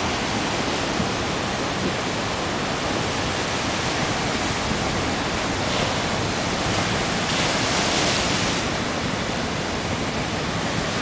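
Heavy ocean surf breaking on a rocky shore: a constant rush of whitewater. It swells louder and hissier for about a second, some seven seconds in.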